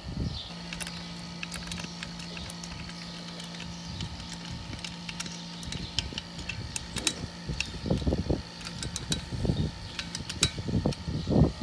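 Light clicks and taps of small metal parts being handled as a go-kart throttle cable and carburetor are fitted, with a faint steady hum through the first half and a few dull bumps near the end.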